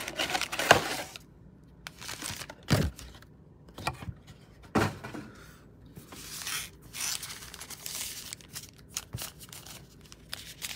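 Cardboard trading-card mega box being opened and its foil-wrapped card packs handled: a few sharp clicks and tears from the box, then crinkling of the pack wrappers from about halfway through.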